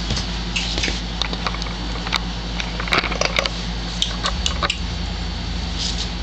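Puppies scuffling on a hard tile floor: a patter of quick claw clicks and scratches over a steady low hum.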